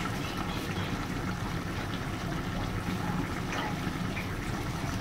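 Duck pieces in fermented bean curd sauce sizzling and bubbling in a large aluminium pot, a steady hiss with a few faint pops; the meat has seared firm.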